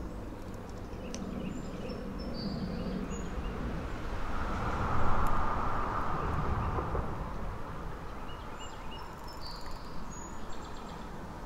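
Outdoor creekside ambience: small birds chirping in two short spells over a steady low rumble, with a broad rushing swell in the middle.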